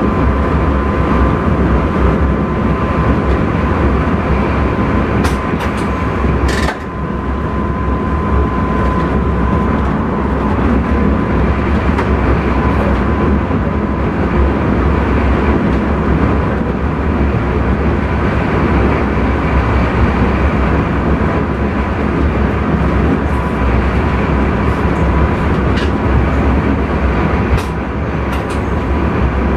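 Intercity train running along the line, heard from inside the driver's cab: a loud, steady rumble and rail noise. A thin steady whine sits over it and fades after the first several seconds.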